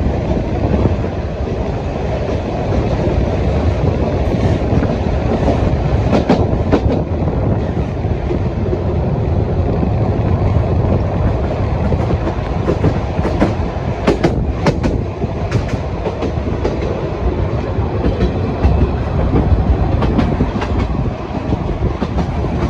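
Vintage narrow-gauge Sóller railway train running along the track: a steady low rumble with irregular clicks and clacks of the wheels over the rail joints, clustered around a quarter and again around two-thirds of the way through.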